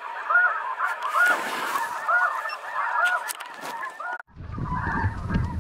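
Snow geese calling, a steady chorus of repeated high, yelping honks. About four seconds in, a low rumble joins the calls.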